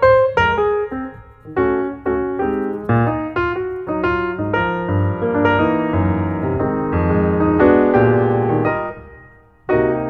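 Background piano music: a melody of struck notes, with held chords in the middle, fading away briefly just before the end and then starting again.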